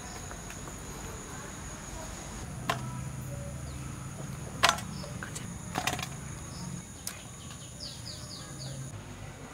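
Steady high-pitched drone of crickets and other insects, with a few sharp clicks and knocks, the loudest about halfway through, as a banana leaf and pieces of fish are handled in a steel bowl. A few short bird chirps come near the end.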